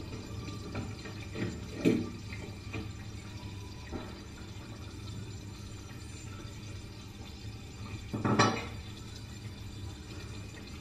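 Coconut milk poured and spooned from a ceramic bowl into a pan of curry, with a metal spoon knocking against the bowl and pan. The loudest clatter comes a little over eight seconds in.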